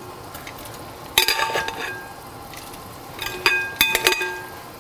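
Kitchen tongs clinking against a stainless steel pot and glass bowl while vegetables are dropped into simmering soup: a cluster of ringing clinks about a second in and another near the end.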